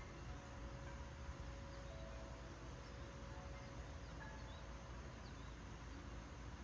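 Steady wind noise with a low rumble on the microphone, and a few faint short chirps over it.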